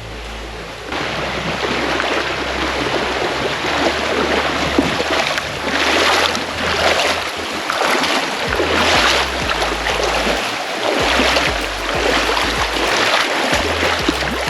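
Rushing, splashing shallow river water as people wade through it, with surges of splashing about once a second from their steps. A low rumble on the camera mic sits underneath.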